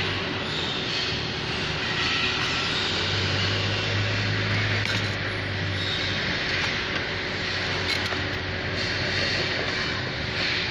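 Steady, loud mechanical background noise with a low hum, like a running machine or fan, with a few faint clicks of metal parts being handled.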